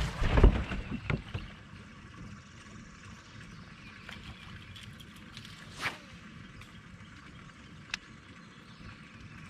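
A few knocks and thumps of gear being handled on a bass boat's deck, then quiet open-water ambience broken by one brief swish and a sharp click.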